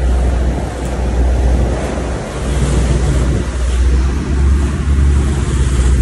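Sea water rushing and churning between a boat's hull and a container ship's hull as the boat runs alongside, over a steady low rumble from the boat's engine and wind on the microphone.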